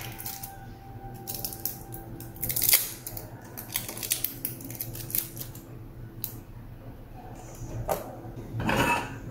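Metal tweezers clicking and scraping as they pick at the tape and tabs of a lithium-polymer pouch cell: irregular small clicks and crinkles, the loudest about a third of the way in. Near the end there is a short rustling burst as the cells are handled and set down on the table.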